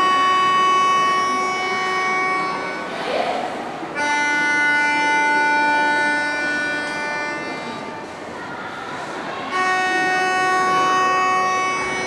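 Music of long, steady held notes: three sustained chords of several seconds each, the second starting about four seconds in and the third near the end.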